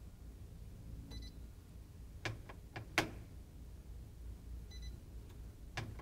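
Clicks of a Kenmore refrigerator's door-light switch pressed in quick succession, and short high beeps from the electronic control board answering the presses, heard about a second in and again near the end. The refrigerator is being stepped through its diagnostic test mode to start the evaporator fan test.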